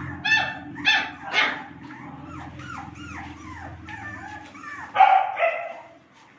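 Doberman puppies yipping and whimpering: a few short high yips, then a string of small falling whines, then two louder yips about five seconds in.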